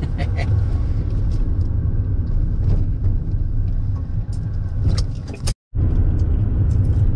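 Car interior noise while driving: a steady low engine and road rumble inside the cabin, with a few light clicks. The sound cuts out for an instant about five and a half seconds in.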